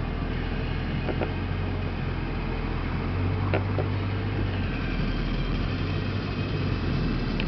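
Car engine running at a low, steady idle, heard from inside a car, with its low note shifting slightly about halfway through and a couple of faint clicks.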